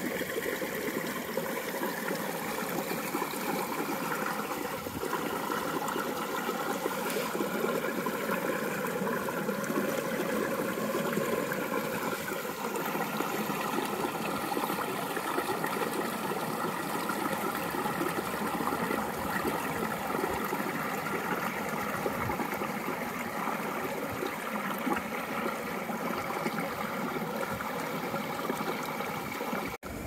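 Running water rushing steadily, a continuous even noise.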